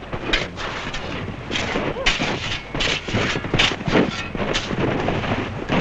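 Snow being dug and scraped by hand, a run of irregular crunching scrapes about twice a second, heard on an old film soundtrack with a steady low hum.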